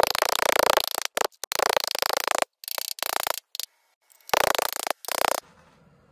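Rough rubbing and scraping on a copper disc, in several short loud bursts that start and stop abruptly, then only a faint steady hum from about five and a half seconds in.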